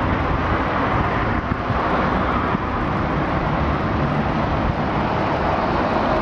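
Steady outdoor city noise: road traffic hum mixed with wind buffeting the microphone.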